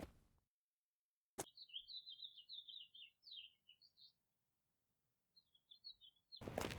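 A bird chirping in quick runs of short, high chirps, then pausing and chirping briefly again. The bird sound starts with a click, and louder footstep-like noise begins right at the end.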